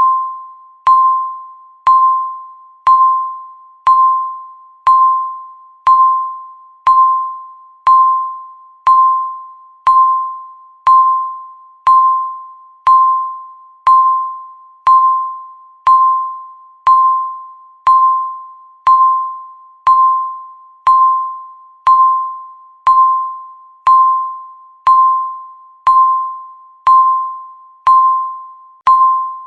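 Countdown timer beeping once a second: each beep is a single steady tone with a sharp start that fades away before the next.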